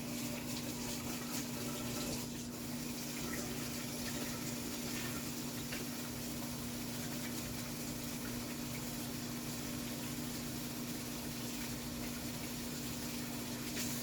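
Water running steadily from a kitchen tap, a constant rush over a low steady hum.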